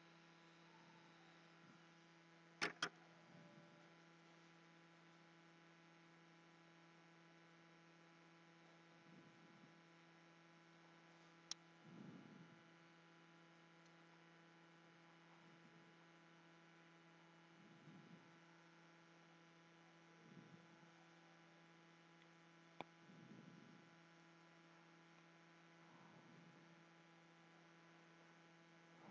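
Near silence with a steady electrical hum. Two sharp clicks come close together about three seconds in, and a few faint ticks and soft handling sounds follow.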